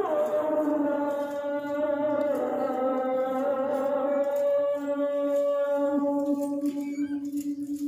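A voice chanting in long, steady held notes, with a brief break about halfway through before the next long note.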